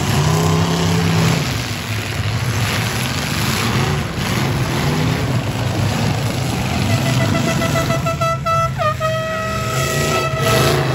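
Demolition derby cars' V8 engines revving and easing off as they manoeuvre. From about seven seconds in, a steady horn tone sounds; it drops in pitch once near nine seconds and then holds.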